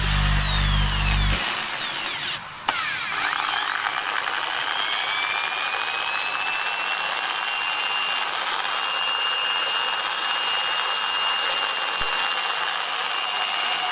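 Electric drill switched on with a click and spinning up, its motor whine rising in pitch and then running steadily at speed.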